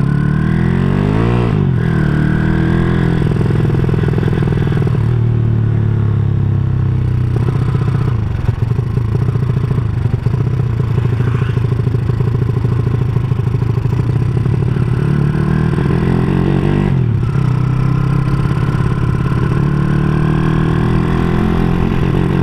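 Honda Supra single-cylinder four-stroke motorcycle engine, bored out to 200cc, running through an aftermarket CJDW exhaust while riding. Its pitch drops and climbs again several times as the throttle is rolled off and back on through the gears.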